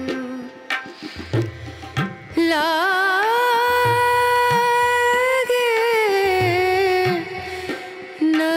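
Background music: a voice singing long, wavering held notes over hand-drum strokes, the singing starting a couple of seconds in and pausing briefly near the end.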